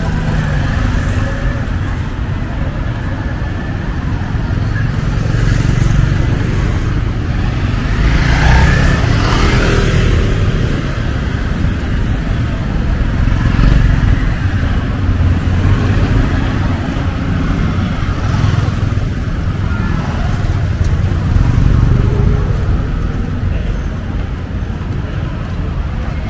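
City street traffic: cars and motorbikes running past in a steady stream, with louder swells as vehicles pass close, the largest about eight to ten seconds in.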